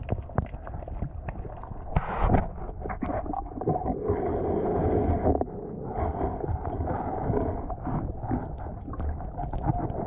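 Muffled underwater noise of shallow sea water picked up by a submerged camera, with irregular knocks and thumps as the metal detector is handled and swept over the sand, and a louder burst about two seconds in.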